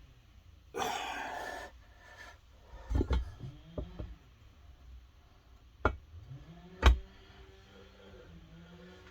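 Sharp knocks and clicks of a crankshaft, its bearings and seals being shifted and seated by hand in a two-stroke watercraft crankcase half, the loudest knock near the end. A brief rushing noise comes about a second in.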